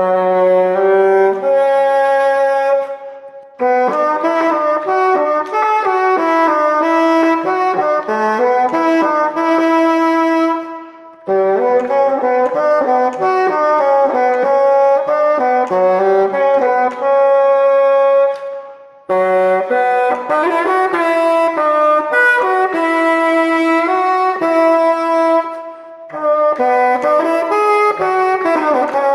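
Solo bassoon playing an unaccompanied melody in phrases. Four short gaps fall between the phrases.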